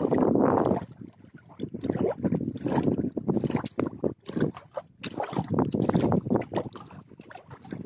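Gusty wind buffeting the microphone over small waves lapping at the lake shore, rising and falling in uneven surges with crackles of handling noise.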